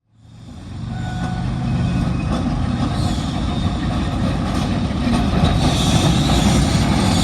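Vintage electric tram running along the track, a steady rumble of wheels on rails that fades in over the first second, with high wheel squeal coming in near the end.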